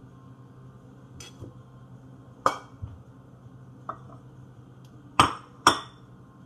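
Dishes and cutlery being handled on a countertop: a few scattered clinks and knocks, then two sharp taps about half a second apart near the end as an egg is cracked against a small glass bowl.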